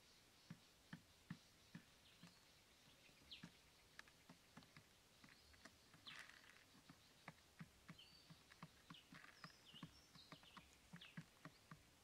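Faint, irregular light taps of pigeons pecking inside and around a plastic bucket, sparse at first and coming more often from about halfway. Faint high chirps of small birds sound throughout.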